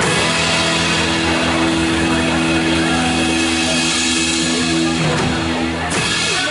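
Rock-style band music with electric guitar and drums, settling into a long held chord that cuts off suddenly.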